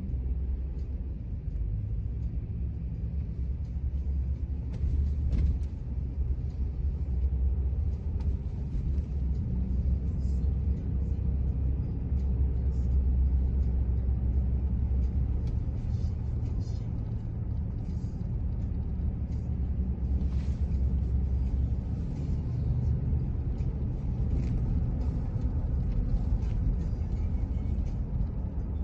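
A steady low rumble with faint scattered clicks.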